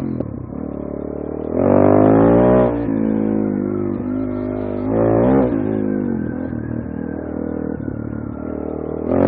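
Suzuki DR-Z400S single-cylinder four-stroke engine running under riding load. The throttle opens twice, about two seconds in and again about five seconds in, the pitch rising and falling, between stretches of steadier running.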